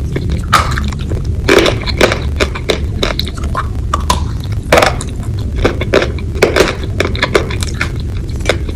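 Close-miked eating: irregular crunches and cracks of food being bitten and chewed, several a second, over a steady low hum.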